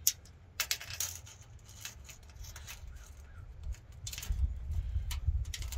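A few sharp, light metallic clicks and rattles of a steel tape measure blade against a rusty steel truck frame. A low rumble comes in about four seconds in.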